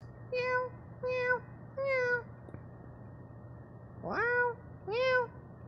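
Cat meowing five times: three short mews of even pitch about a second apart, then a pause, then two mews that rise in pitch.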